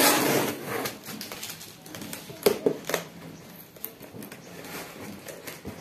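Packing tape being ripped from a cardboard shipping box at the start, then scattered sharp taps and scratches of cardboard and tape as the box is worked open, with a quick cluster of clicks about two and a half seconds in.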